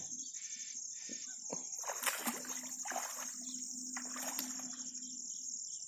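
Water splashing and sloshing in several short bursts as a big hooked rohu is hauled in at the lake edge, over a steady high chirring of insects.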